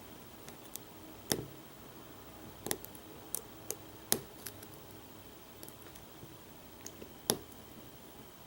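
Picking tools working in the American pin-tumbler core of a Brinks 527 padlock: scattered small metallic clicks and ticks at irregular intervals, a few of them sharper than the rest.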